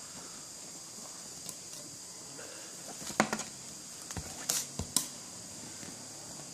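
A few light clicks and knocks as the HDMI cable is handled, clustered about three to five seconds in, over a faint steady hiss.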